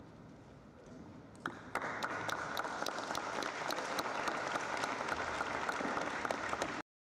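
Spectator applause at the end of a tennis match. It breaks out suddenly about a second and a half in, with individual claps standing out, and is cut off abruptly near the end.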